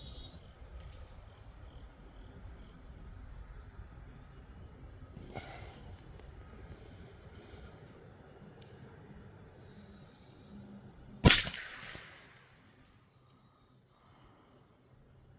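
A single .22 LR rifle shot from a Rossi RB22 about eleven seconds in, sharp and short with a brief trailing echo, over the steady high chirping of crickets.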